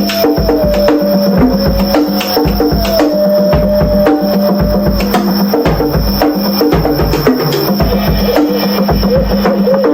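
Drum solo: fast, dense drum and percussion hits. A thin held tone slides slowly downward through the first half.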